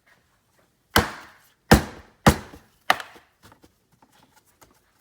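Four sharp knocks about half a second apart, each dying away quickly, from a hand slapping a car trim panel back down to snap its clips into place.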